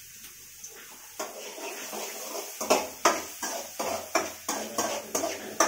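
Cookware clattering in a run of about nine quick scraping strokes, roughly three a second, over a steady rush of noise that starts about a second in.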